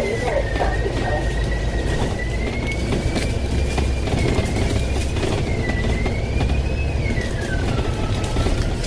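Duple-bodied double-decker bus in motion, heard from inside: steady low engine and road rumble under a high whine that wavers up and down in pitch and falls noticeably near the end.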